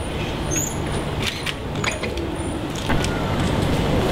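Steady low rumble of road traffic, with a few sharp clicks, growing a little louder about three seconds in.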